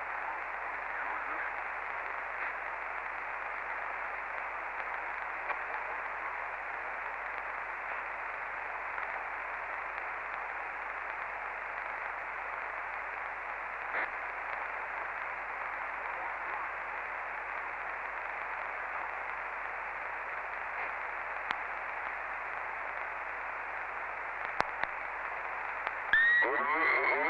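Steady hiss of a CB radio receiver on the 27.555 MHz channel, an open channel with no station on it, with a few faint clicks. About a second before the end, a strong station breaks in with a distorted voice.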